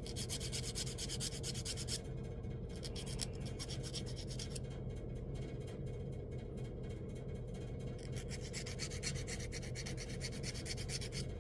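A mini file rubbing and rasping in quick, light strokes on the freshly cut end of a small copper pipe, deburring the rough edge, over a steady low hum.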